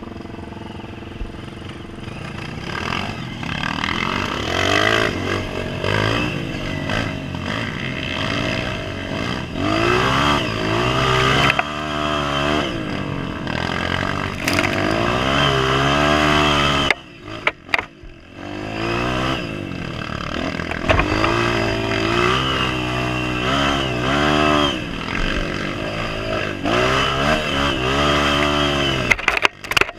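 Honda CRF230F dirt bike's single-cylinder four-stroke engine revving up and down as it rides a rutted dirt trail, the throttle opening and closing again and again. The sound drops away briefly about halfway through and again near the end.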